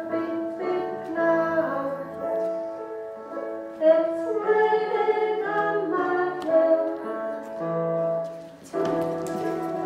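A song playing: a woman singing held notes over a gentle instrumental accompaniment.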